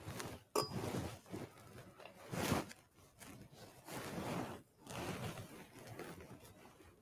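Irregular bursts of rustling and handling noise at the altar, with one sharp clink about half a second in.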